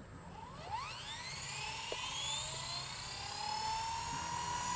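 Blade 230 S V2 RC helicopter's brushless electric motor and rotor spooling up for takeoff: a whine that rises quickly in pitch over about two seconds, then levels off into a steady high whine as the head reaches speed.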